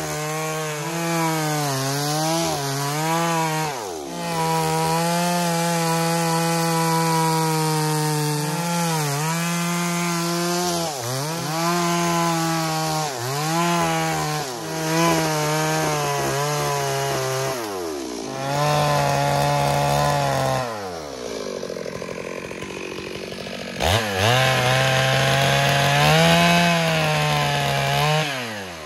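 STIHL MS 382 two-stroke chainsaw cutting into a wooden stump at high revs, the engine note dipping under load again and again and recovering. Several times the throttle is let off and the revs fall away, then it revs back up.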